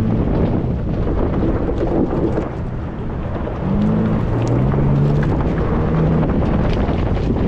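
Ford Bronco Raptor's twin-turbo V6 engine pulling under throttle off-road, buried in heavy wind buffeting on the microphone. The engine dips briefly a couple of seconds in, then its pitch rises as it accelerates again near the middle.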